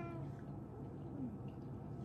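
A domestic cat's meow trailing off just at the start, followed about a second in by a brief, faint, low falling sound, during a claw trim.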